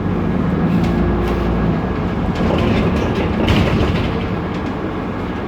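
Inside a BMC Procity city bus under way: the Cummins ISB diesel runs as a steady low rumble under a constant rattle and clatter of loose window glass and interior panels.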